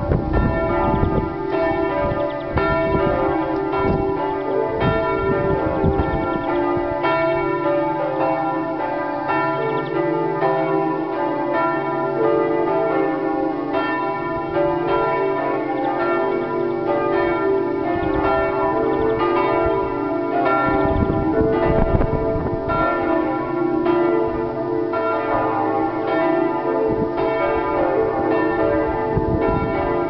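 Several church bells pealing together in a full, continuous ring, with overlapping strokes from bells of different pitch. A low rumble comes through in the first few seconds and again about two-thirds of the way through.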